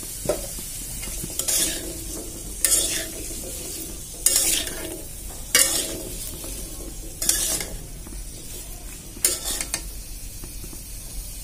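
A long metal spatula scraping and stirring potato and carrot pieces frying in oil in a metal karahi, about seven scraping strokes a second or two apart, over steady sizzling.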